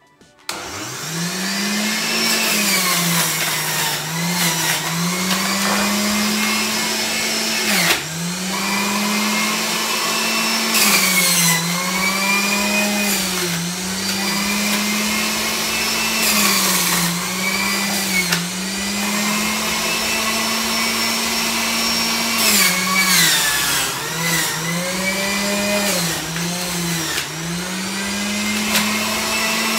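Electric centrifugal juicer switching on about half a second in and running with a high motor whine. The pitch sags each time celery stalks are pushed down the feed tube, then recovers, with sharp crunches as the stalks are shredded.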